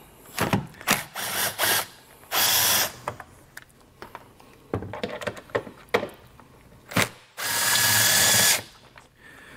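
Cordless drill with a T30 Torx bit backing out the two screws that hold a taillight: one short run about two seconds in and a longer run of about a second near the end, with clicks and knocks from handling the tool in between.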